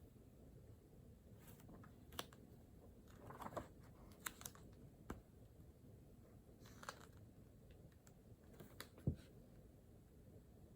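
Near silence with about ten scattered light clicks and taps of desk work. The sharpest tap comes about nine seconds in.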